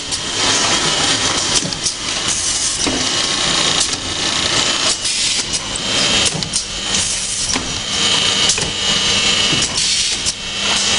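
Automatic paint brush finishing machine running: a steady mechanical whir and hum with a faint high whine, broken by frequent short clacks at uneven intervals.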